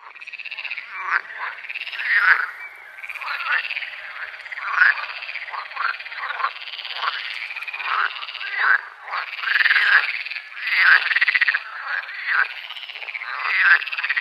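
A chorus of many frogs calling at once, their overlapping calls forming a dense, continuous din.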